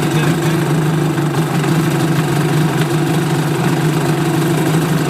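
2002 Yamaha WaveRunner XLT's two-stroke engine, freshly rebuilt with new pistons and gaskets, idling steadily.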